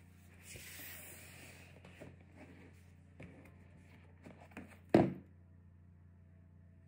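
Large cardboard gift box being slid and handled on a desk, a rubbing hiss and a few light taps, then one sharp knock about five seconds in as the lid of the magnetic-closure box is swung open.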